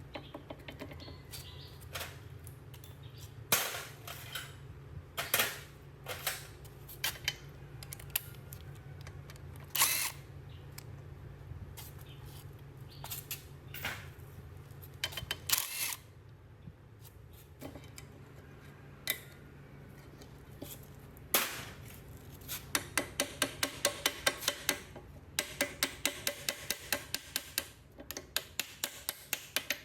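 Hand tools knocking and clinking on metal machine parts, scattered single knocks over a steady low hum through the first half, then a quick run of light taps, about four a second, near the end.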